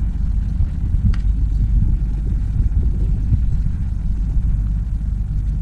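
Steady low rumble of wind buffeting the microphone, with one faint click about a second in.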